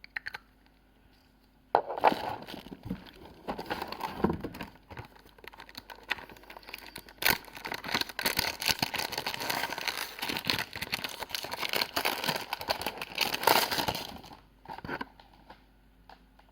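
Packaging crinkling as it is handled and unwrapped: a dense run of crackles and rustling starts about two seconds in and stops shortly before the end.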